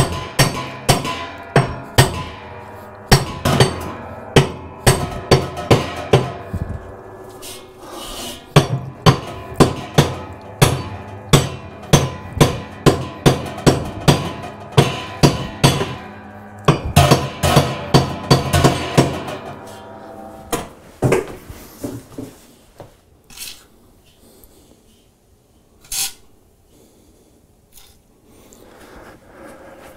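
Hammer strikes on a wrench fitted to the seized spindle nut of a Speed Queen washer, about two blows a second, each ringing through the steel tub, to break the calcified nut free. The hammering stops about 21 seconds in, followed by a few scattered knocks.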